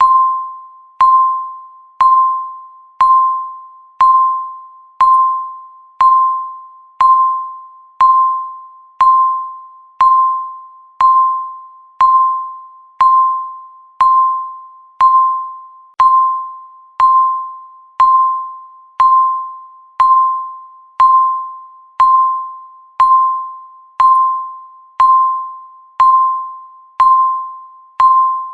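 Countdown timer's electronic beep, one short single-pitch tone every second, each starting sharply and fading away, ticking off the seconds of the count.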